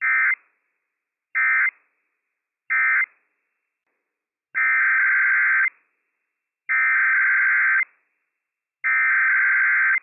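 NOAA Weather Radio Emergency Alert System (SAME) digital data tones, harsh buzzing bursts. First come three short end-of-message bursts about 1.3 seconds apart, closing the Required Weekly Test. About four and a half seconds in come three longer header bursts about two seconds apart, which open the next test message.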